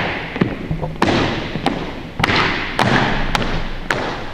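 Marching footsteps of a four-person color guard in step on a hardwood gym floor: sharp heel strikes at a steady pace of a little under two a second, each echoing in the large hall.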